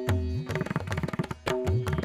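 Background music of hand-drum percussion playing a fast, repeating rhythmic pattern, with low drum strokes that bend in pitch.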